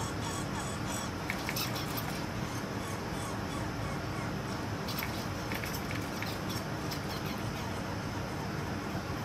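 Two American red squirrels squabbling at a wire-caged seed feeder: scattered short, sharp scratches and clicks over a steady hiss.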